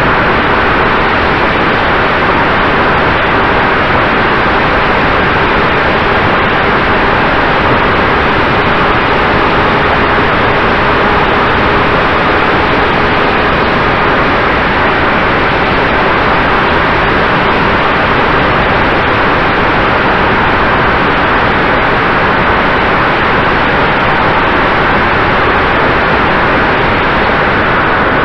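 Steady rush of wind and propeller noise picked up by the onboard camera of an FPV model plane in flight, with a faint steady motor hum underneath.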